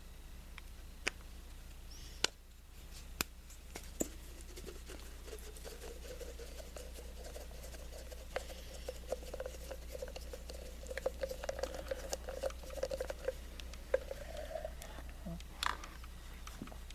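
Phillips screwdriver backing out the distributor cap screws on a Honda D16 SOHC engine. A few light clicks of the tool on the screws are followed by a long, faint, wavering squeak with fine ticks as a screw turns in its threads, and a clink near the end.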